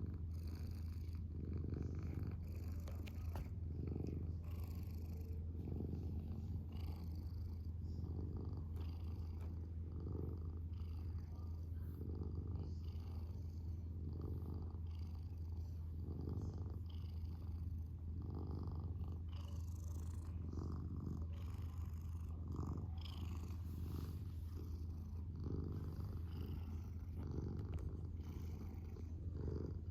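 Domestic cat purring steadily and close, the low purr swelling and easing with each breath, about once every second and a half.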